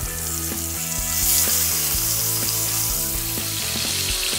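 Milkfish pieces sizzling as they fry in hot oil in a pan, the sizzle growing louder about a second in, over background music.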